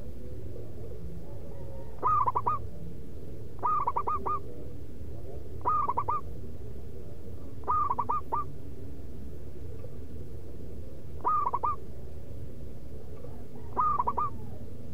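Local perkutut (zebra dove) cooing: six short rhythmic phrases of several quick notes each, about two seconds apart with a longer pause after the fourth, over a steady low background noise.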